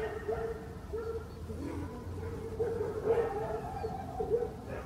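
A dog whining and yipping: a steady run of short, rising-and-falling whines, several a second, without a pause.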